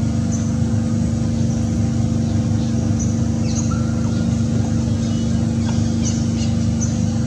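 A steady low motor drone with a constant hum runs throughout, with short, high bird chirps scattered over it.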